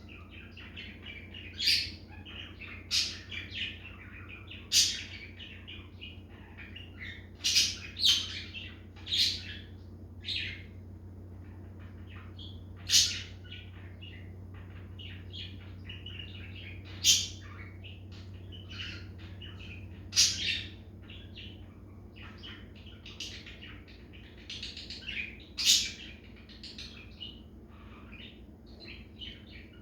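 Budgerigar chirping in short, sharp, high calls at irregular intervals, over a steady low hum.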